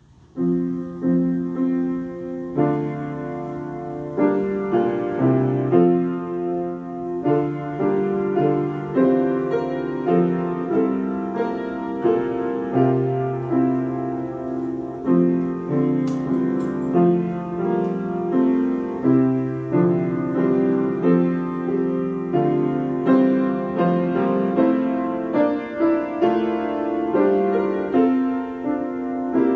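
Slow solo piano prelude, chords played at an even pace, starting about half a second in.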